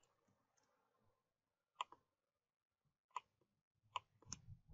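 A few faint, separate clicks of a computer mouse and keyboard: a quick pair a little under two seconds in, then several more spaced out towards the end.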